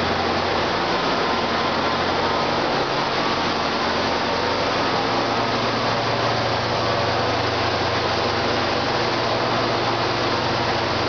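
Diesel locomotives idling at rest, a steady loud engine drone with a low hum and a strong hiss. One low tone shifts slightly about halfway through.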